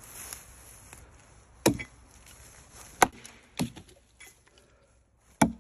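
An axe chopping into wood: four sharp strikes at uneven intervals, the first about a second and a half in and the last near the end.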